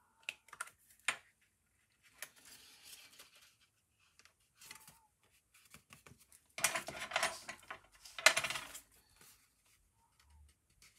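Paper and card being handled on a work table: a few light taps and clicks, then soft rustling, with two louder crinkling rustles a little past the middle.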